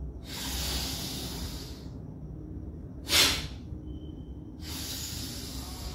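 A person's breathing in a forceful breathing exercise: a long inhale of about a second and a half, then one short, sharp forced exhale about three seconds in, the loudest sound, then another long inhale.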